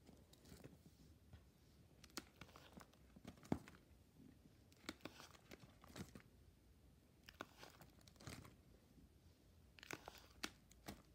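Faint crinkling and rustling of plastic binder pocket pages being handled and turned, with scattered soft clicks.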